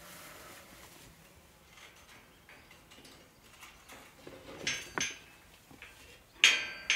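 Sheep bleating, a few separate calls in the second half, the loudest near the end.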